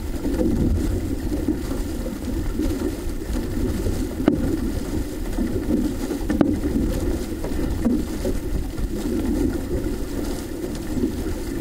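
Steady low rushing and rumbling from an OC-6 outrigger canoe being paddled across open water, with two sharp knocks about four and six seconds in.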